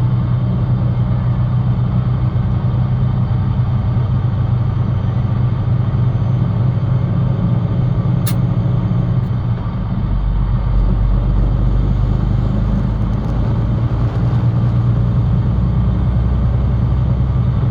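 Diesel truck's engine and drivetrain making a steady low rumble, heard from inside the cab; the rumble deepens about ten seconds in, and a single sharp click comes a little before that.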